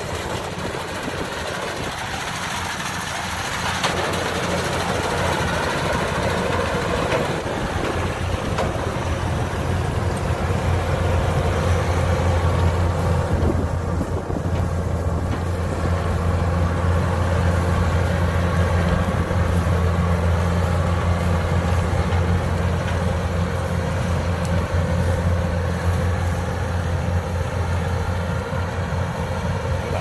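Kubota DC105X rice combine harvester's diesel engine running steadily while it cuts rice: a smooth, even low drone that grows a little louder a few seconds in.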